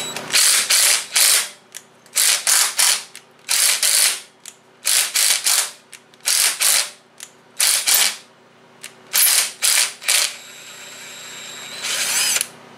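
A 20V cordless impact driver backing a cylinder head bolt out of an Onan Performer 20 opposed-twin engine in a long series of short bursts, each under a second, with brief pauses between. The bolt is pulling threads as it comes out.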